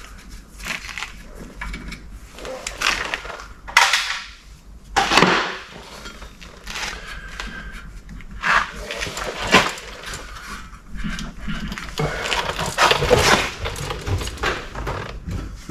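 Hand-tool work on a car's rear brake: the Phillips screws holding the brake rotor are backed out with a screwdriver. Scattered clicks, scrapes and metal clinks run throughout, busiest near the end.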